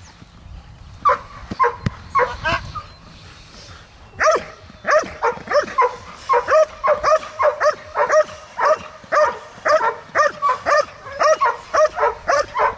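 Belgian Malinois barking repeatedly as it lunges on its leash at a decoy wearing a bite leg sleeve. A few barks come about a second in, then steady barking at about two barks a second from about four seconds in.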